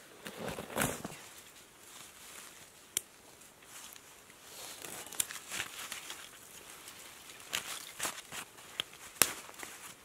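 Wood campfire crackling, with sharp pops every second or two; the loudest comes near the end.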